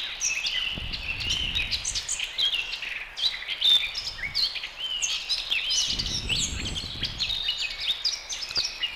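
Many small songbirds chirping and twittering in a dense, continuous chorus, played as the animation's background sound effect. A soft low rumble swells twice, about a second in and again around six seconds.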